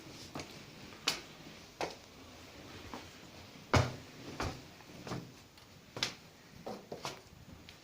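Irregular short clicks and knocks, about one a second, over faint background hiss; the loudest comes nearly four seconds in.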